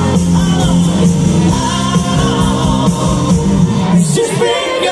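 Live band playing amplified through a PA, with singing over guitars, bass, keyboards and drums.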